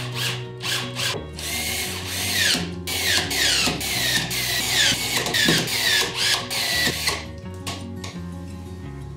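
Small cordless screwdriver driving screws through an acrylic panel into wood, running in a series of short bursts about two a second, each whine falling in pitch. It stops about seven seconds in.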